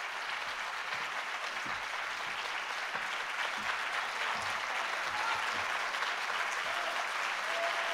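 Theatre audience applauding steadily, growing a little louder in the second half, with a faint voice or two calling out near the end.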